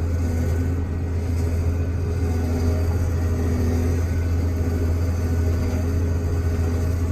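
Heavy farm diesel engine running steadily with a deep, even drone.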